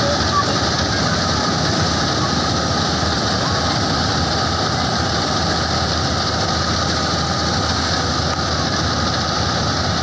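Combine harvester running steadily while it cuts and threshes rice: a constant, dense mechanical din of engine and machinery.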